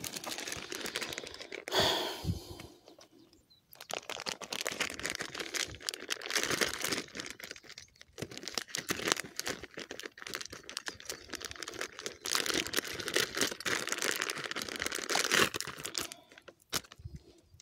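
Clear plastic zip-lock bag crinkling close up as hands handle it, in long stretches of dense crackle with a short pause about three seconds in.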